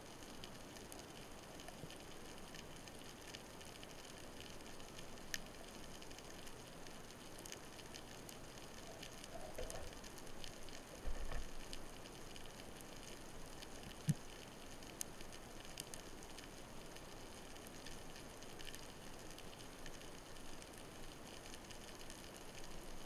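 Underwater ambience heard through an action-camera housing: a faint, steady crackle and hiss, with a few sharp clicks, a short low knock about eleven seconds in, and a louder click a few seconds later.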